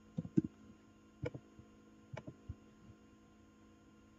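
Computer keyboard keys and mouse clicks tapping faintly while login details are typed and submitted: a quick run of three taps near the start, then single and paired taps about a second apart, over a steady hum.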